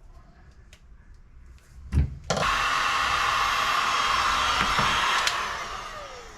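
A thump, then a small electric motor starts with a loud rushing whir, runs about three seconds, and winds down with falling pitch.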